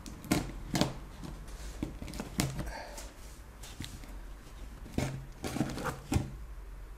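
A knife in need of sharpening cutting along the packing-tape seam of a cardboard box: irregular short scrapes and knocks of the blade on tape and cardboard, bunched near the start, in the middle and toward the end.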